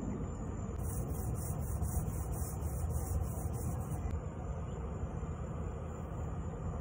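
Steady low rumbling noise. From about one to four seconds in, a faint high hiss pulses about three times a second.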